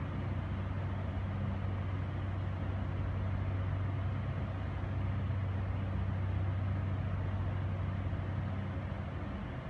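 A steady low mechanical hum over a background of noise, holding even throughout.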